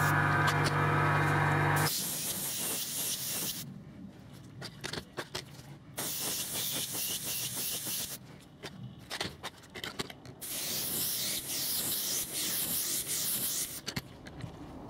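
Iwata Eclipse HPCS airbrush spraying thinned paint in three passes, each a hiss of a couple of seconds, with short pauses and small clicks between. A steady hum sounds with the first pass for about two seconds.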